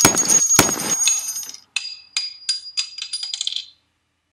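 Two sharp gunshot sound effects with a ringing metallic tail, about half a second apart. Then an ejected brass shell casing drops and bounces on a hard surface, a dozen or so high ringing clinks coming quicker and quicker until it settles.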